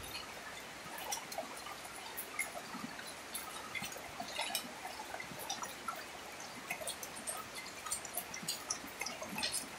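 Rain falling steadily, an even hiss with many scattered close drips ticking and splashing.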